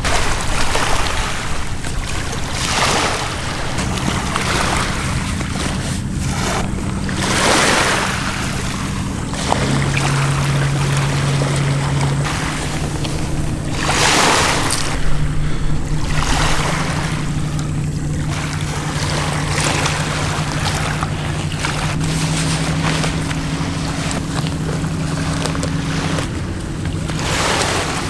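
Waves washing on a pebble-and-sand shore, swelling every few seconds, with wind buffeting the microphone. Under it runs a steady low hum that steps to a new pitch every few seconds.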